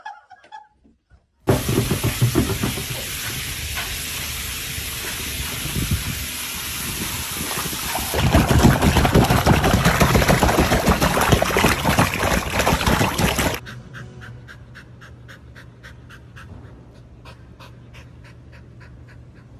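Loud, even splashing and rushing of water as dogs paddle in a pool, cutting off suddenly after about twelve seconds. A quieter stretch of quick, evenly repeated puffs follows: a dog panting.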